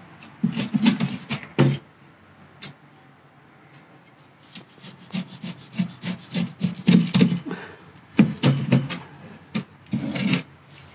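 Knife cutting through grilled char siu pork on a chopping board, in several runs of quick strokes with short pauses between.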